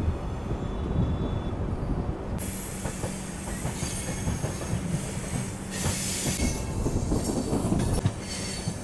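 Passenger train coaches' wheels running over the rails at speed: a steady rumble with irregular clacks over joints and points. A high hiss joins about two and a half seconds in.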